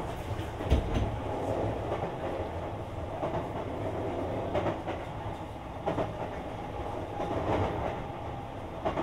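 Sotetsu 20000 series electric train running between stations, heard from inside the car: a steady rumble of wheels on rail, with several sharp clacks as the wheels pass over rail joints.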